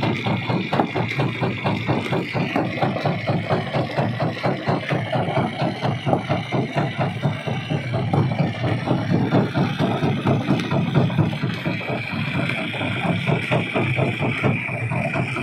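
Stone crusher running, with a fast, even pulse of knocks several times a second over a steady machine drone.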